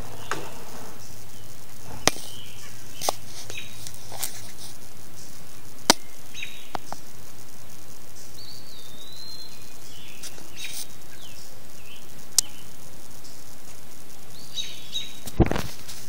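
Outdoor ambience with short, high bird chirps now and then, and several sharp clicks a few seconds apart.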